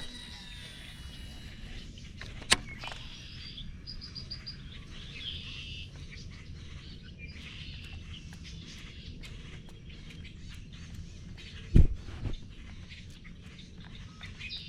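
Birds chirping and calling, with a quick run of about five high notes around four seconds in. A sharp click comes about two and a half seconds in, and a heavy low thump comes near the end.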